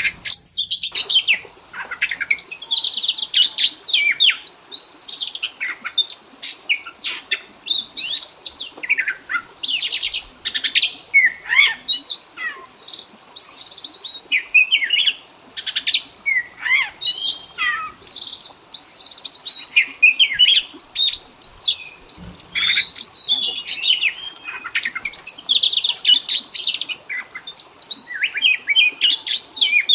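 Oriental magpie-robin (kacer) singing a fast, varied song of whistles, chirps and sweeping notes with hardly a pause, the kind of 'full isian' song packed with mimicked phrases of other birds.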